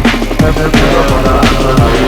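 Loud drum and bass music playing in a DJ set: a fast beat with sharp snare hits about every 0.7 s, punchy kicks that drop in pitch, and a deep sustained bass line.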